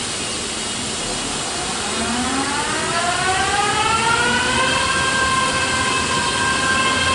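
A Christ Genius Vitesse rollover car wash gantry runs through its cycle over an even hiss of spray. From about two seconds in, an electric motor whine rises in pitch and levels off into a steady tone.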